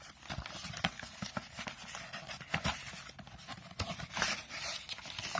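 Rustling and irregular light clicks and knocks of a small retail box and its packaging being handled as parts are taken out of it.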